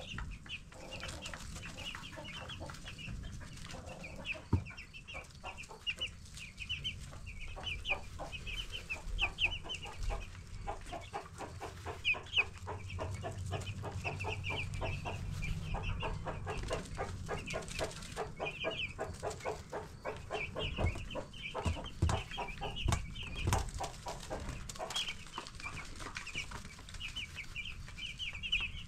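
A flock of 10-day-old broiler chicks peeping, with many short, high peeps overlapping without a break. Through the middle there is a rapid, softer ticking lower in pitch, and a few dull thumps follow later on.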